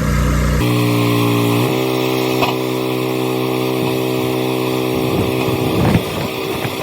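The log splitter's small gasoline engine running at a steady speed on a fresh spark plug, its note shifting slightly about two seconds in and turning uneven and ragged about five seconds in.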